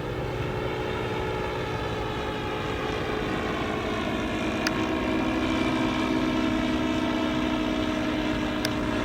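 Radio-control scale model Cessna 337 Skymaster in flight, its engine droning steadily. It grows a little louder about halfway through.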